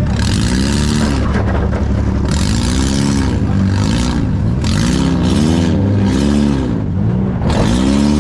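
Compact demolition derby car's engine heard from inside its stripped-out cabin, revving up and dropping back again and again, each rise and fall lasting about a second, over a steady low rumble.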